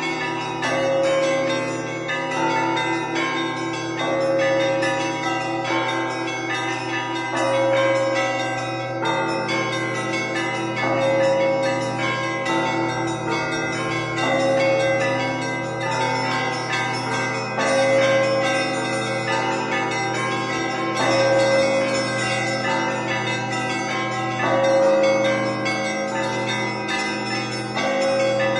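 Russian Orthodox church bells rung by a bell-ringer. Small bells chime in a fast, even pattern over the long ring of the low bells, and a repeating phrase on a middle bell swells in about every three and a half seconds.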